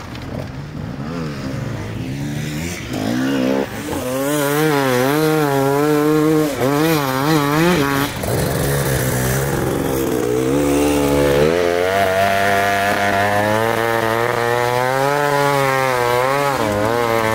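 Enduro motorcycle engines revving hard under load, the pitch rising and falling quickly as the riders work the throttle, over a steadier lower engine drone. It gets louder about four seconds in.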